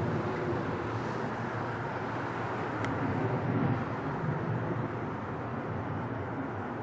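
Boeing 737 jet engines rumbling steadily as the airliner departs, a deep even roar without speech.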